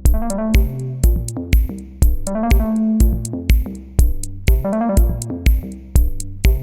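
Electro dance music: a drum-machine kick on every beat, about two a second, with hi-hats, synth bass and rippling synth arpeggios. The kick comes in right at the start after a short drumless stretch.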